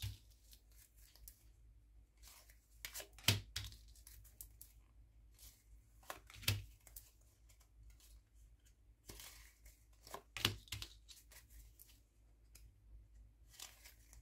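Lenormand oracle cards being drawn from a deck and laid down one at a time on a cloth: faint papery slides and soft taps every few seconds.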